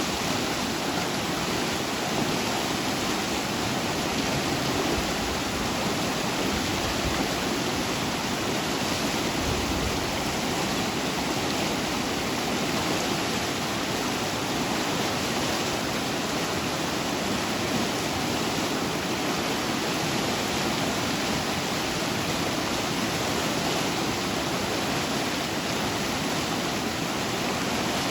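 Running water rushing steadily and evenly, with no breaks or separate splashes.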